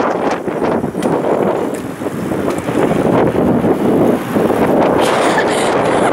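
Wind buffeting the microphone outdoors, a steady loud rushing with no clear pitch, while a bicycle is ridden along the road.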